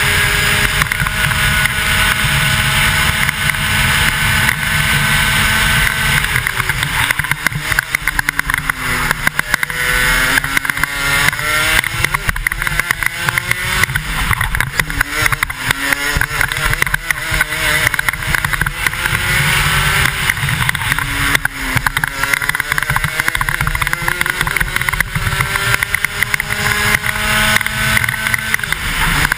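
Two-stroke 125cc kart engine heard from a helmet camera on track, held at high revs for about six seconds, then falling as the driver lifts off. The revs rise and fall through a series of corners, then climb steadily to high revs again in the last few seconds.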